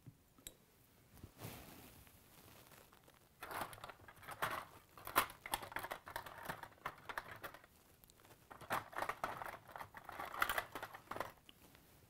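Plastic packaging crinkling and rustling as it is handled, in several bursts starting about three and a half seconds in, with a few sharp clicks among them.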